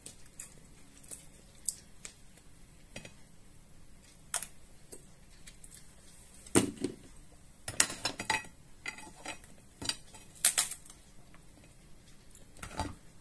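A metal spoon clicking and scraping against king crab shell and the plate as meat is scooped out of the legs, in scattered short clinks and scrapes that are busiest from about six to eleven seconds in.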